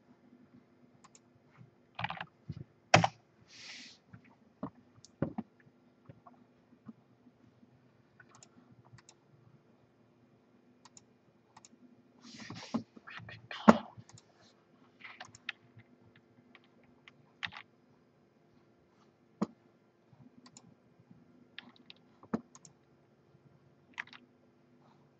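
Sporadic clicking and tapping on a computer keyboard, a few keystrokes at a time with pauses between them, and a couple of brief soft rustles. A faint steady low hum runs underneath.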